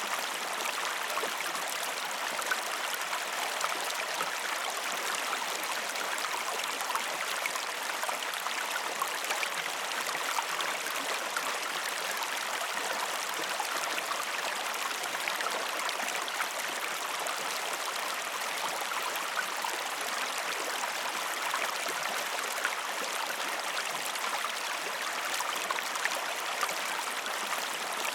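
Waterfall splashing: a steady, even rush of falling water, with fine splashes and trickles in it.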